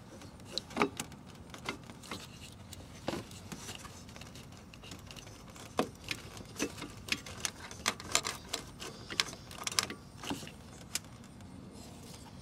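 Plastic clicks and rattles as fingers work the wiring connector and red locking tab on a 9007 halogen headlight bulb. The sharp, irregular clicks come thickest in the second half.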